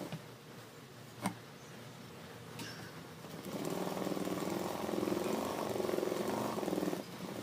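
Industrial lockstitch sewing machine stopping, a single sharp click about a second in, then the machine stitching steadily again from about halfway with a brief pause near the end.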